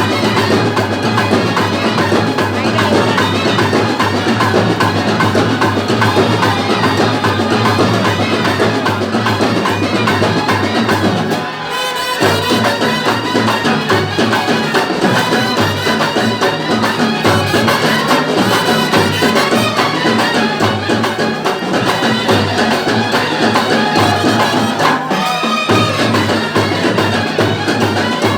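Loud drum-led percussion music, playing continuously with a brief dip about twelve seconds in.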